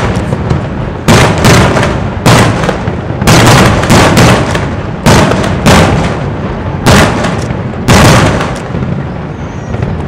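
Aerial firework shells bursting in quick succession: about a dozen loud bangs, each followed by a decaying echo, spacing out and fading near the end.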